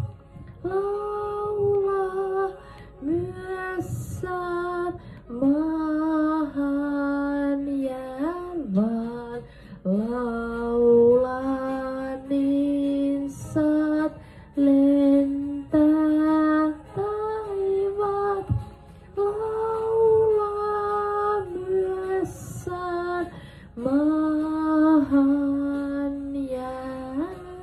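A woman singing a slow melody into a handheld microphone, holding long notes and gliding between them.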